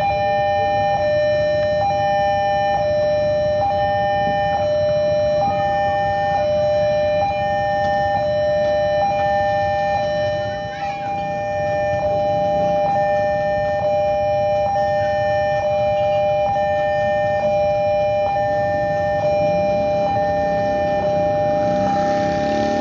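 Railway level-crossing warning alarm sounding: a steady two-tone electronic signal, broken briefly about once a second, warning of an approaching train, over a low rumble of traffic. Near the end the lower sound of the approaching diesel locomotive grows in underneath.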